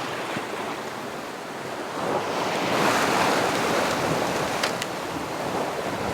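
Sea water rushing and splashing along a sailboat's hull under way, swelling into a louder surge in the middle and easing off again.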